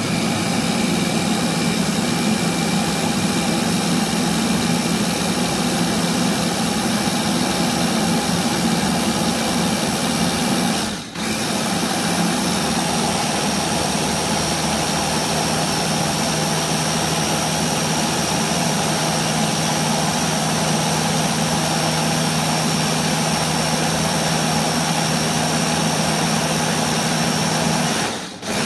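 Small electric press-top blender (pink Krypton mini chopper) motor running steadily, blending blueberries, milk and ice cream into a milkshake. The motor stops for a moment about eleven seconds in and again near the end, then starts again.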